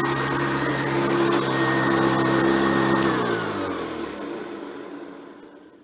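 Hoover Convertible U4349 upright vacuum cleaner's motor running steadily. About three seconds in it is switched off with a click, and its hum winds down, falling in pitch and fading out.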